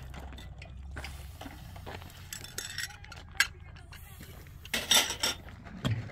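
Scattered light clinks and knocks of hard objects being handled, with a single sharp click about three and a half seconds in and a louder clatter near five seconds.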